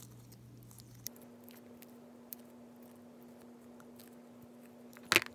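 Hands working sticky slime: scattered faint clicks and small pops, with a louder burst of clicks about five seconds in.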